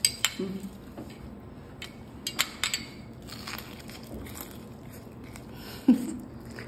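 A metal spoon clinks against a small glass bowl of cream soup as spoonfuls are scooped and tasted: a sharp clink at the start and a few more about two and a half seconds in. A short low vocal sound near the end is the loudest moment.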